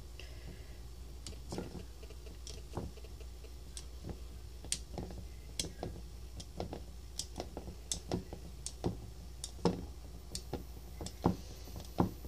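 Irregular light clicks of a small metal cutter tapping against a ceramic plate as it presses a pattern into soft pitha dough, roughly one or two a second and a little louder towards the end, over a faint steady low hum.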